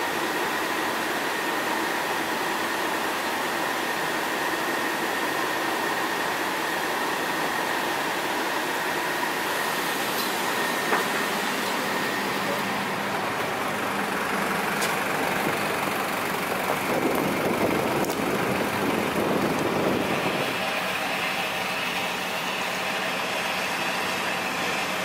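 Steady vehicle noise inside an airport apron bus, with a faint steady whine. About halfway through it gives way to the steady machinery noise of the apron beside a parked airliner, with a rumble that swells for a few seconds later on.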